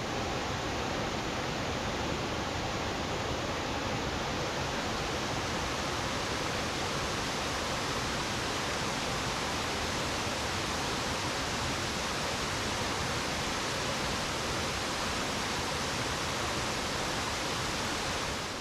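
A three-tiered waterfall running high after heavy rain: a steady, even rush of falling water that fades out at the very end.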